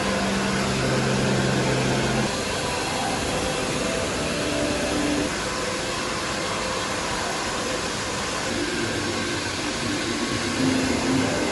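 Steady background roar of a train-station concourse, like air handling, with a few faint low hums that come and go.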